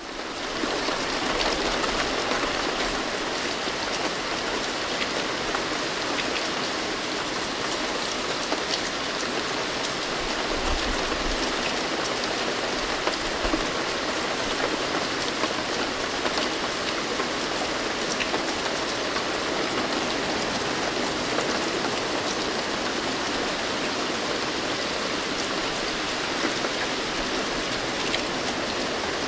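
Steady rain falling, an even hiss of drops. A faint low rumble of distant thunder sits under it from about ten to fourteen seconds in.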